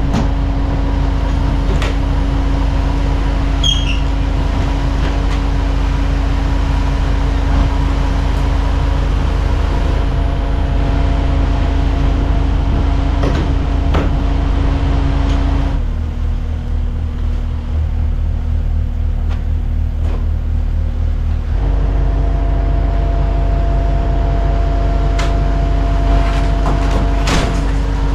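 Diesel engines of two compact track loaders running steadily under load while carrying a garage, with a few sharp knocks and creaks.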